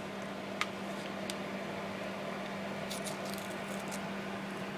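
Silvercrest 2000 W electric fan heater running, a steady hum with an even rush of air. A few small clicks come about half a second in, just over a second in, and around three seconds in.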